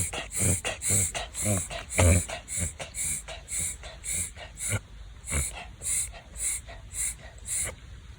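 Shiba Inu dog breathing in a fit of labored, snorting breaths, about two a second. The breaths are strongest in the first two seconds, then weaker. This is the kind of breathing attack the owner suspects is reverse sneezing or bronchial collapse.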